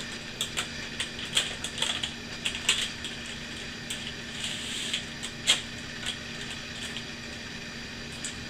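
Baking paper crinkling and crackling in irregular bursts as hands fold and roll it around a soft meatloaf on a plastic cutting board, with a few sharper crackles along the way.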